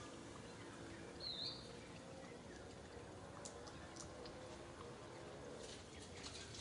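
Faint outdoor ambience with one short, high chirp about a second in, and a few light clicks a little later.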